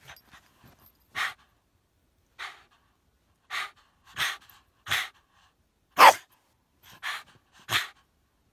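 Dog huffing and panting: about eight short, breathy puffs at uneven intervals, the loudest about six seconds in.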